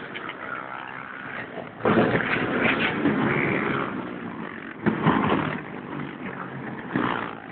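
Dirt-bike motorcycle engines passing one after another along a street, with sudden loud surges as bikes rev and go by about two seconds in, around five seconds in, and again near the end.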